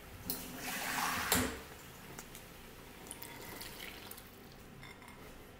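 Cold water poured from a glass bowl into a saucepan of boiling noodles, splashing into the pot to knock back the boil, with a sharp knock about a second in. Then a faint bubbling with small ticks.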